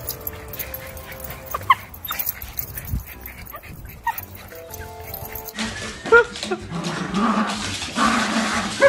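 A small dog giving a few short, high yips and whines over background music.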